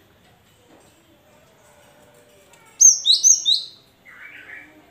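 Cinereous tit calling: about three seconds in, a quick run of four or five high, downward-slurred notes, followed by a short, lower buzzy call.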